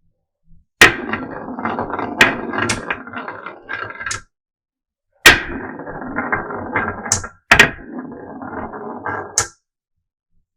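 Marbles on a wooden marble run: each run starts with a sharp knock and goes on as a rattling roll with clicks as the marbles drop through the track pieces. This happens three times, each run lasting two to three seconds.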